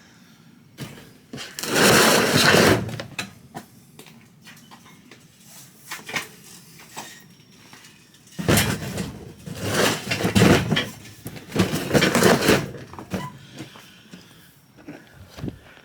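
Scrap items being handled and loaded into the back of a van, heard as scraping and clattering: one burst about two seconds in, then a longer stretch from about eight to thirteen seconds.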